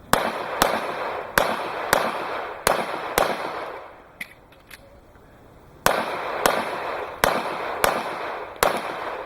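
Pistol fired in quick pairs of shots, about half a second between the two shots of a pair: three pairs, a pause of about two and a half seconds, then three more pairs, each shot with a short echo.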